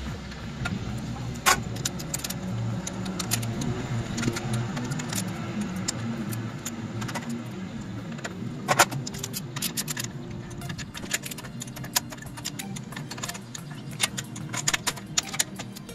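Metal hand tools clinking and clicking against engine cylinder heads and valve gear during assembly. The clicks are sharp and irregular, the loudest about a second and a half in and again near nine seconds, with quicker clicking in the last few seconds as a torque wrench socket goes onto a head nut.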